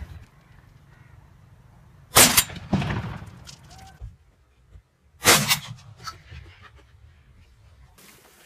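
Gun firing: two sharp shots about three seconds apart, each trailing off briefly, and a third right at the end.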